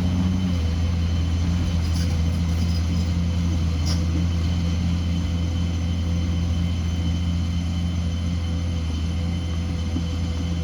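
Excavator's diesel engine running at a steady speed, a constant low hum.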